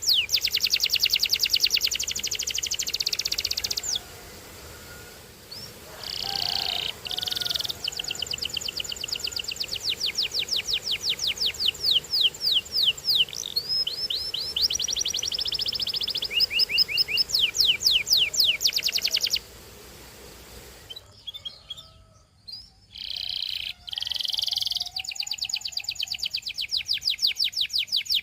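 Canary singing: long, fast trills of rapidly repeated falling notes, with a few short single notes. The song breaks off about 4 seconds in and again about 20 seconds in before resuming.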